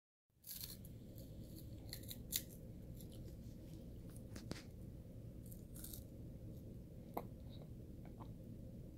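A baby chewing a peanut butter puff, with scattered soft crunches and mouth clicks, the sharpest about two and a half seconds in, over a steady low hum.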